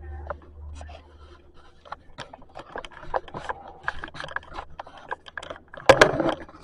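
Scattered scraping, rubbing and clicking, like things being handled, with a louder rustling burst near the end.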